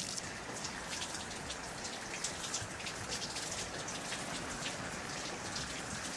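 Water running out of a Hydrasoar water-fed brush onto solar panel glass as the brush is scrubbed across the panels: a steady hiss with many small, irregular splashes.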